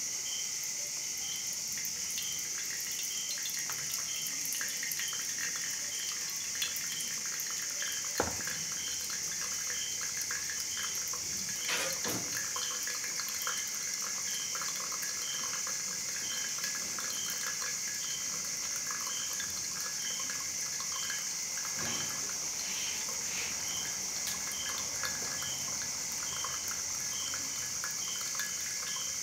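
Thin stream of hot water poured from a gooseneck kettle onto wet coffee grounds in a V60 dripper: a steady soft trickle as the coffee brews. A high insect chirp repeats about one and a half times a second in the background.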